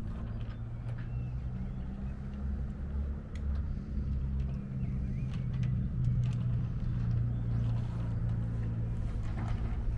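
A boat's engine running steadily at low speed, a low even hum, with a few light clicks over it.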